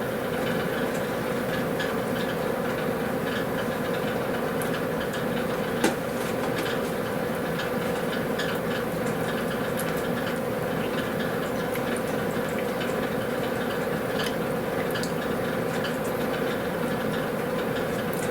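Meat sizzling on a hot grill: a steady hiss with scattered small crackles and one sharper click about six seconds in.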